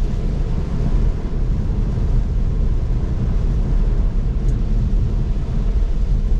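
Steady rumble of a Tesla electric car driving on a flooded road in heavy rain, heard inside the cabin: tyre and rain noise with no engine.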